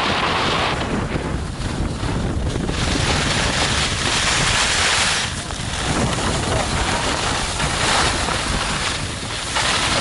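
Wind rushing over the action camera's microphone and skis hissing and scraping over the snow during a downhill run. The hiss swells and eases several times.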